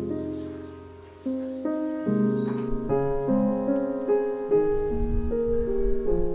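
Background piano music: a slow melody of held notes and chords, changing about every half second.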